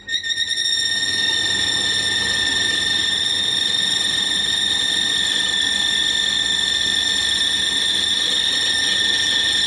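Tower fan switched on, coming up to speed within the first second and then running with a steady high-pitched squeal over the rush of air. The squeal comes from motor bushings gone tight on the shaft with dust.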